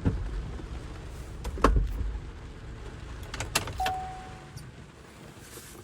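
Handling noises inside a car: a few sharp clicks and clunks over a low rumble that fades, with a short steady beep a little past the middle.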